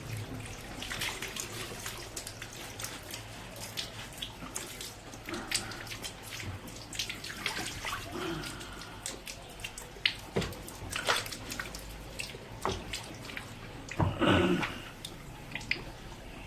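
Acid being drained out of an old UPS battery's opened cells, the liquid splashing and dripping in irregular bursts, with a louder burst about 14 seconds in.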